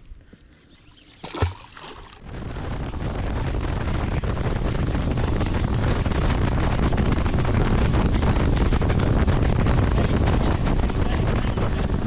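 Wind buffeting the microphone: a steady rushing rumble that builds about two seconds in and holds, after a single short knock.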